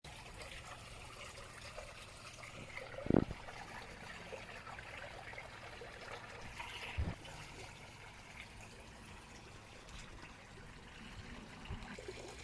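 Water trickling softly and steadily, with two short low thumps about three and seven seconds in.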